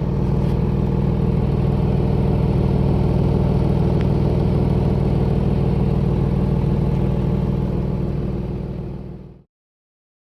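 A vehicle engine running steadily with a loud, low drone. It cuts off abruptly about nine and a half seconds in.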